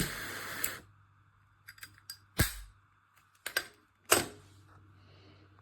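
A short hiss, then a few sharp clicks and taps of small hard objects being handled, over a faint low electrical hum.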